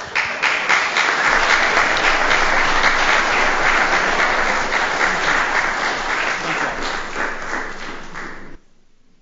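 A roomful of people applauding: dense, steady clapping that cuts off abruptly about a second before the end.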